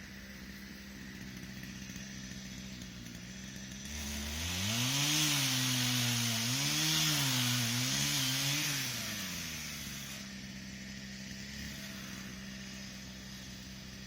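Two-stroke chainsaw idling, then revved up about four seconds in and run hard for about six seconds, its pitch wavering as it cuts into wood, before dropping back to idle.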